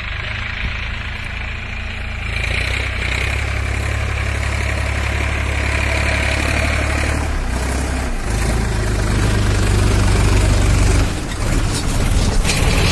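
Solis Yanmar 5015 4WD tractor's diesel engine running under load as it drives a 7.5-foot rotavator through hard, weedy soil, growing louder about two seconds in as the tractor comes close.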